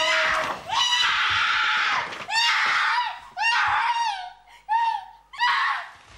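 Wordless human screaming: a string of about six long, high-pitched screams with short breaks between them, the pitch bending at the end of each.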